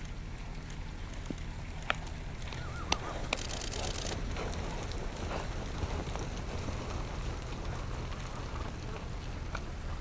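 Horses running through snow: muffled hoofbeats over a steady low rumble of wind on the microphone, with a few sharp clicks about two to three seconds in.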